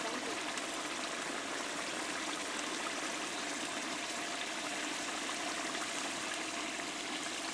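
Chicken masala gravy at a rolling boil in a large pot, a steady bubbling hiss of bursting bubbles.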